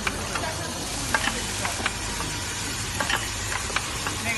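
Automatic cosmetic ampoule machine running: a steady hiss with sharp mechanical clicks from its pneumatic heads and indexing turntable, about two a second at uneven intervals.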